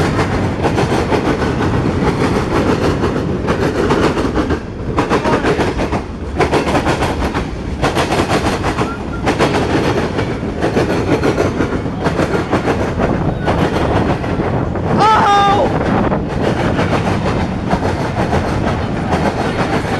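CSX freight train rolling past: a steady rumble of freight cars with a quick clickety-clack of wheels over rail joints. A brief high-pitched squeal about fifteen seconds in.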